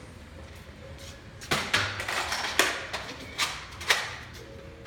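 A few sharp knocks, about four spread over two and a half seconds, with a short ring after each.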